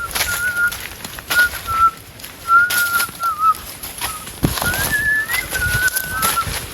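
A high, wavering whistle-like tone in short phrases, rising briefly near the middle, with scattered clicks and a few low knocks.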